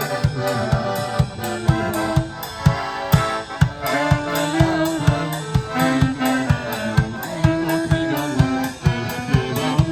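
Live band playing dance music: a melody in held notes over a steady drum beat of about two to three hits a second.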